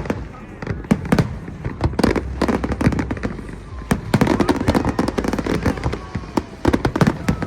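Aerial fireworks going off in quick succession: many sharp bangs and crackling reports in dense volleys, over a low rumble.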